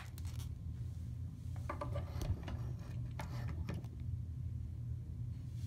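Hands handling a plastic action figure: soft rubbing and a few light clicks and taps, grouped about two seconds in and again a little past three seconds, over a steady low hum.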